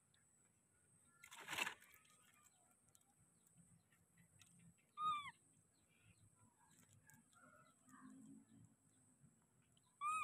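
Mostly quiet, with a brief rustle about a second and a half in, then two short, high animal calls about five seconds apart, each a quick tone that falls away.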